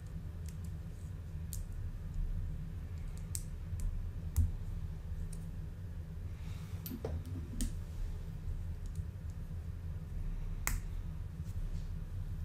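Plastic Lego bricks clicking and tapping as pieces are handled and pressed together, in scattered single clicks, the sharpest near the end. A steady low hum runs underneath.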